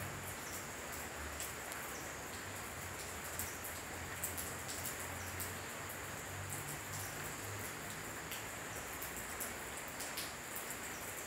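Night ambience: a steady high-pitched insect trill over a faint hiss, with scattered light clicks and taps.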